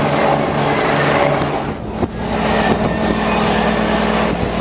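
Fire engine's engine running steadily, with an abrupt change in its sound about halfway through.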